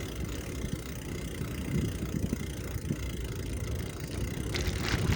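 Steady low rumble of wind and road noise while riding a bicycle, with small irregular knocks and a short hiss near the end.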